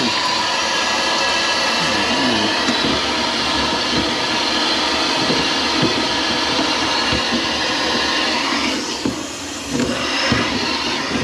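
A motor-driven machine running steadily with a loud whirring drone that eases off about eight and a half seconds in.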